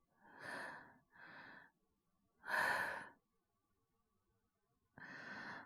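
A male voice actor's breathy sighs and exhales, four in all with a longer gap before the last, acted as the laboured breathing of a character sick with fever and a cough.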